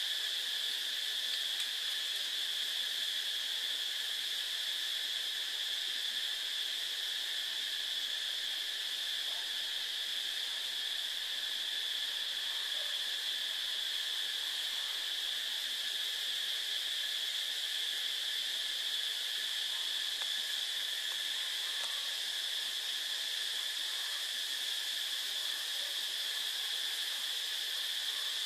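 A steady high-pitched whine that holds one pitch without a break and never changes in level.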